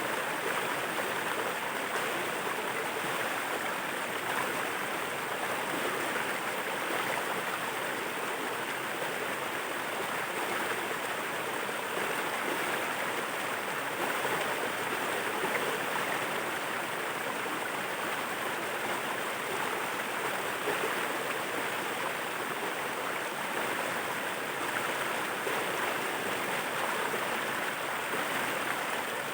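Water of a waterfall rushing and splashing in a steady, even rush that does not change.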